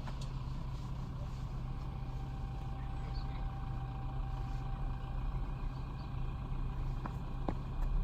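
Car engine running with a steady low hum; the sound cuts off abruptly near the end.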